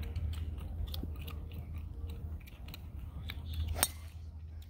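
A golf club striking a ball off the tee about four seconds in: a single sharp crack. Under it are a low steady rumble and scattered small clicks.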